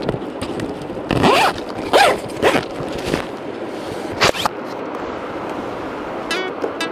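Zipper on a bag being pulled open in several quick strokes.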